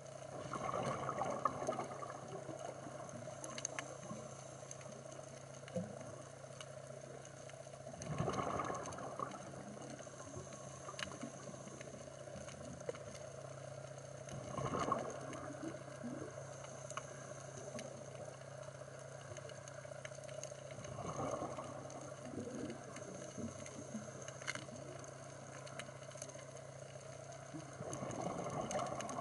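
Underwater recording of a scuba diver's exhaled bubbles rushing out in a regular surge about every six to seven seconds, over a steady low hum.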